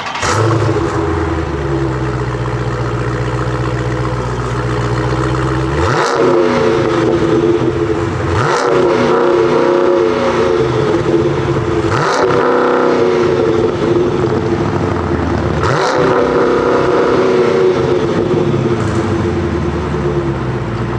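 Dodge Challenger Scat Pack's 392 (6.4-litre) HEMI V8 idling steadily, then revved sharply four times, each rev rising and dropping back. It settles back to idle near the end.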